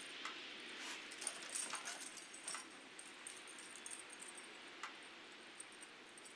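Small dogs playing, with faint short dog sounds and a cluster of light jingling clicks about one to three seconds in, then a few scattered ticks over a faint steady hiss.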